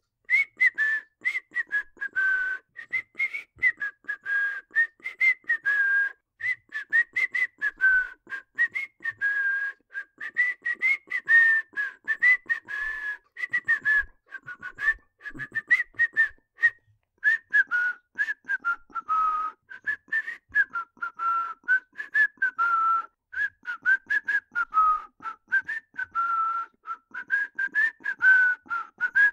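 A person whistling a cheerful, improvised melody in quick short notes, the pitch hopping up and down, with brief pauses for breath.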